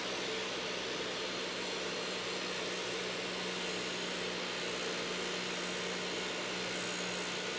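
Table saw fitted with a dado stack, running with a steady whir and constant hum while the spinning stack is raised up into a sacrificial MDF auxiliary fence, cutting its clearance arc and setting the dado depth.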